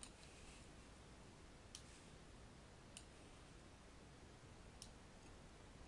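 Near silence: room tone, with three faint, separate computer mouse clicks.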